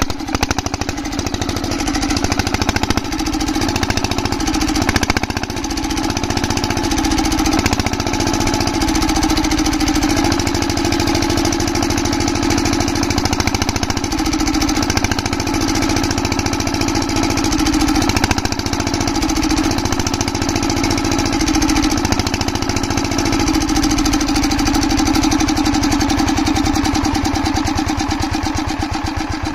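Single-cylinder stationary diesel engine driving an irrigation water pump, running steadily with a fast, even firing beat. It has just been started after its jammed fuel-injector nozzle was freed and the injector refitted.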